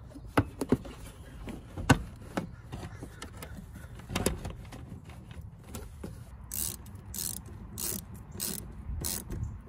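Clicks and knocks of a plastic air intake tube and rubber coupler being pushed onto a throttle body, then about five short ratcheting strokes, roughly two a second, as a hand tool tightens the coupler's band clamp.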